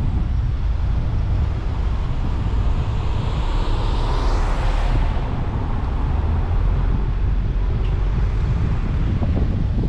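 Car driving at low speed, heard through a camera microphone: a steady low rumble of road and wind noise. A hissing swell builds in the middle and cuts off abruptly about five seconds in.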